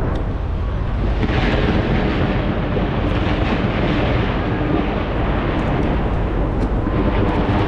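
Skyscraper fireworks display: a dense run of aerial shell bursts merging into a continuous rumble, with faint crackling on top. It swells about a second in and again near the end.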